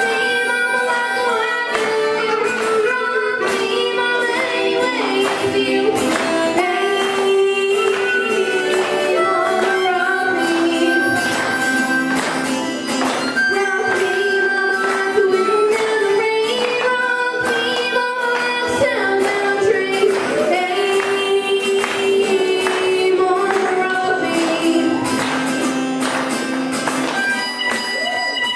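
A boy's voice singing a country-folk song over a strummed acoustic guitar, with a diatonic harmonica (blues harp) playing along.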